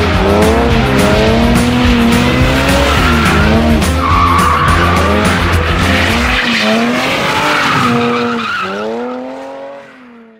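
BMW E36 drift car sliding, its engine revving up and down and tyres squealing, over music with a steady beat. The music's bass drops out about six seconds in, and the car sounds fade away near the end.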